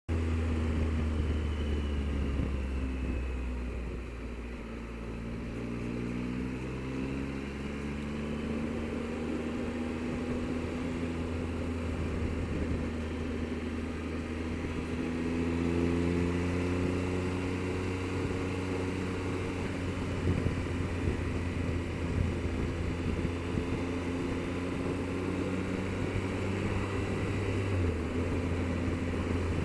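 Triumph Explorer motorcycle engine running under way, its pitch falling as it slows over the first few seconds, then climbing again as it accelerates, with steady wind and road noise.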